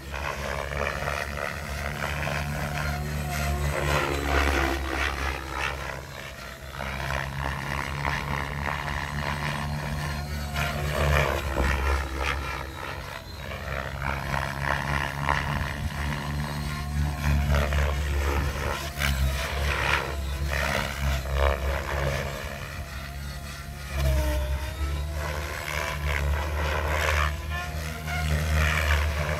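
Specter 700 electric RC helicopter flying 3D, its main rotor beating steadily at a governed 2200 rpm headspeed, with the motor and tail rotor whine rising and falling as it manoeuvres. The sound drops back briefly twice, about twelve seconds in and again about twenty-four seconds in.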